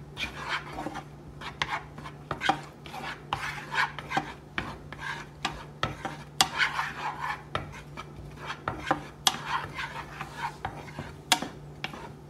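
Spatula stirring and scraping chopped onion in a nonstick frying pan: a run of irregular rasping strokes with sharp clicks and taps against the pan.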